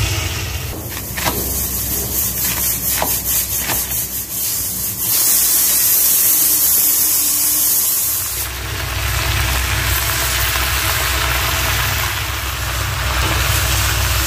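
Pressure cooker letting off steam: a loud hiss, about halfway through, lasting about three seconds. Before it, a low engine rumble drops away and a few sharp clicks sound; the rumble returns after the hiss.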